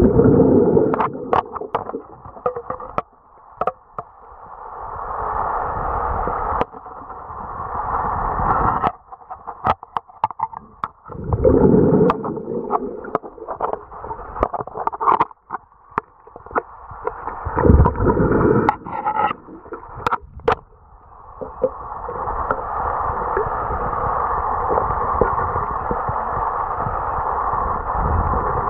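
Muffled rushing and gurgling of moving pool water heard underwater, swelling and cutting off several times, with scattered clicks and knocks.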